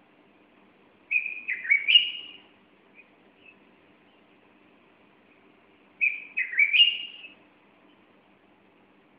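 A bulbul singing two short phrases of a few quick whistled notes, each rising at the end, about five seconds apart.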